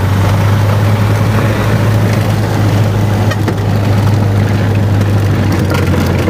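A small four-seat high-wing propeller plane's engine running with a steady low drone, heard from inside the cabin.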